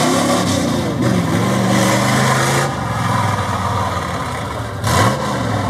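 Engine of a lifted 1970s Ford pickup pulling through deep mud, its pitch dipping and climbing as the throttle is worked, with a quick drop and rise in revs and a short loud rush of noise about five seconds in.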